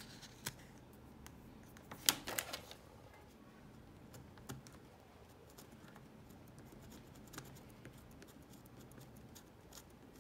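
Scratching and picking at the glued-down suede lining of an Apple leather iPhone case: faint scrapes and small scattered clicks, with a louder cluster of clicks about two seconds in. The lining is glued firmly and does not lift off in a sheet.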